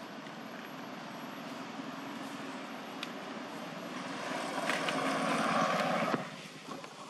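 Motor vehicle engine and road noise building up steadily, loudest shortly before it cuts off abruptly about six seconds in.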